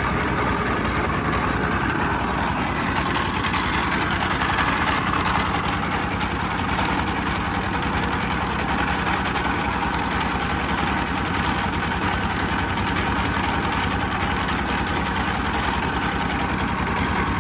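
Mobile rice-milling machine running steadily: a constant engine drone with dense mechanical noise over it, unchanging throughout.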